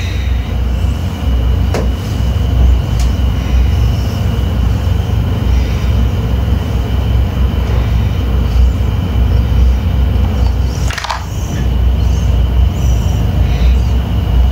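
Small electric motor driving a Miracle Bricks model's plastic toy gears, a continuous rumbling whir with a faint steady high whine and a few brief clicks.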